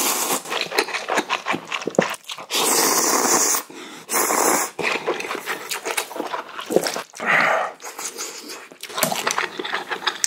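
A man slurping spicy ramen noodles loudly from chopsticks, three long slurps with the longest about a second, then chewing with wet smacking clicks.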